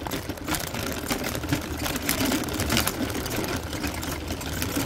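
Rain pattering close by, a dense irregular ticking of drops, over a steady low hum.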